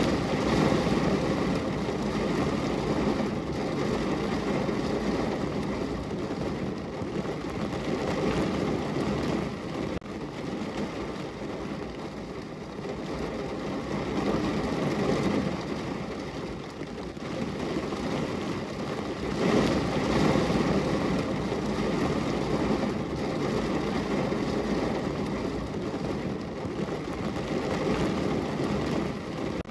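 Steady rain falling on and against a window, a dense rushing hiss with a low rumble underneath. It swells louder near the start and again about twenty seconds in.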